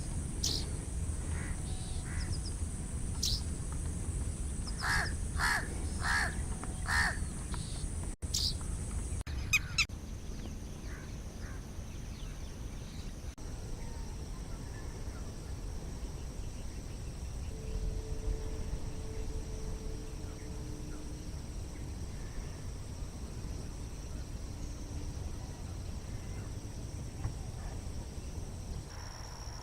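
Outdoor birdsong: a bird gives a few short calls, four in quick succession about five seconds in, over a steady low rumble and a high whine. After about eight seconds the calls stop and only quieter background sound remains.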